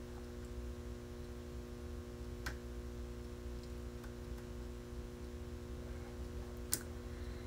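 Steady electrical hum in the recording, with two faint clicks, one about two and a half seconds in and one near the end.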